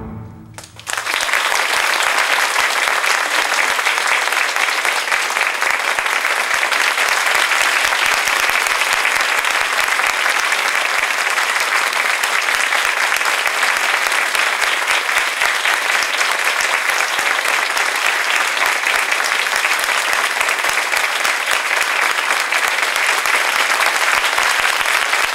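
A theatre audience bursts into applause about a second in, just as the orchestral music dies away. The clapping then runs on steady and full.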